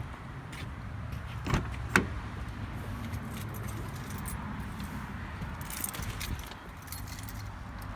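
Car keys jangling, with two sharp knocks about a second and a half and two seconds in, over a steady low rumble.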